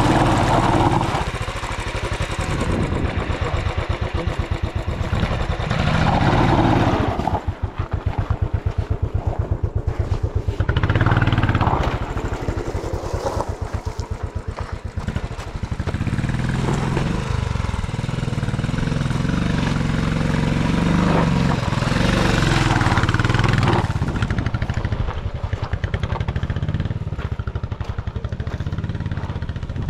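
Royal Enfield motorcycle engine running under load on a rough dirt trail, the revs rising and falling as the throttle is worked.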